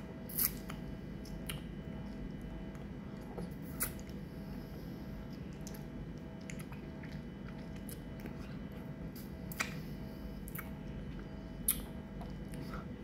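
A handful of short, sharp mouth clicks and smacks from someone eating passion fruit pulp, sucking it off a finger, over a steady low hum.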